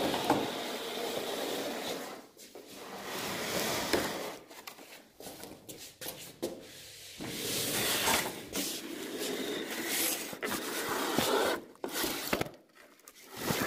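Irregular rubbing and scraping strokes, each lasting one to two seconds with short gaps between them.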